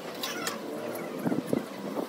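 An animal calling in the background, with short clicks and scrapes of a steel mason's trowel on cement.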